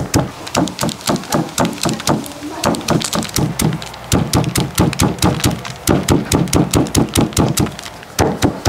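Hooked chopping knife cutting tender jackfruit held on a stake, in rapid even strokes of about five or six a second, each a sharp chop as small shreds of the fruit fall away.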